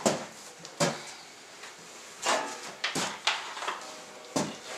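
A handful of scattered knocks and thuds: work boots stepping and shifting on a wooden floor.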